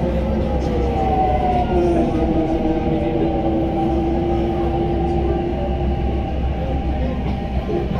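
Delhi Metro train running along the track: a steady low rumble with humming tones over it, one tone slowly falling in pitch during the first half.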